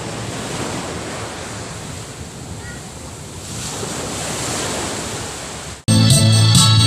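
Sea waves washing onto a beach, a rushing noise that swells and fades, with wind buffeting the microphone. Near the end it cuts off abruptly to music.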